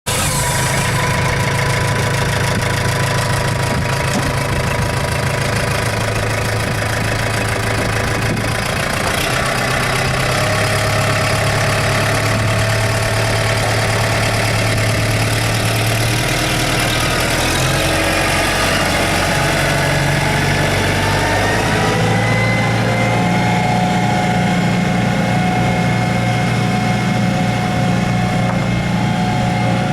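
2013 Kubota M108S tractor's diesel engine idling steadily, its speed rising a little about two-thirds of the way through.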